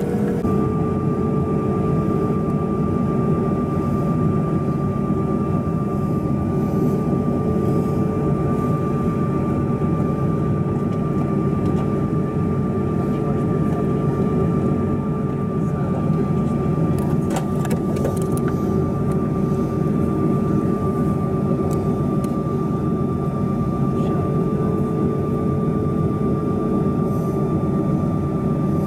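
Steady cabin rumble of a Bombardier CRJ-200 being pushed back before engine start, with a steady high whine that sets in about half a second in and holds throughout.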